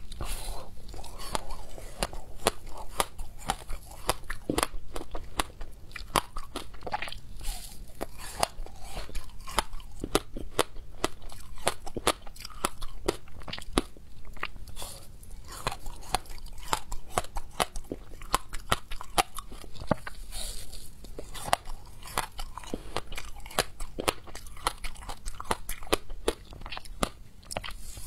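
Frozen passion-fruit ice, studded with pulp and seeds, being bitten and chewed close to a clip-on microphone: a dense run of sharp, icy crunches.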